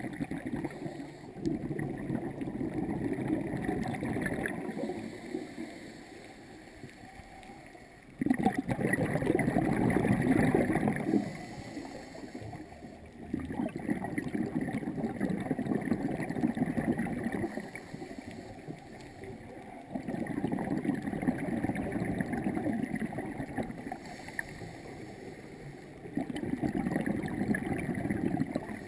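Scuba diver's regulator exhaling, heard underwater: a rush of bubbling lasting three or four seconds that comes back about every six seconds, five breaths in all, with quieter gaps between for the inhalations.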